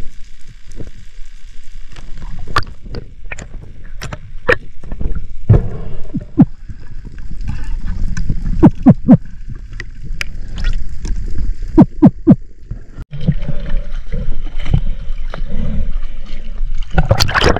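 Underwater sound during a freedive with a pole spear: a low muffled water rumble with sharp clicks and knocks scattered through it. About thirteen seconds in it cuts to the surface, where water sloshes and splashes, loudest near the end.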